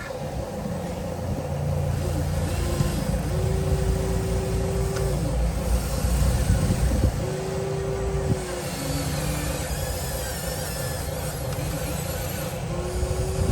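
Radio-controlled 1:14 scale Huina excavator and dump truck at work: a steady mechanical hum and low rumble, with an electric motor's whine rising, holding and falling off three times.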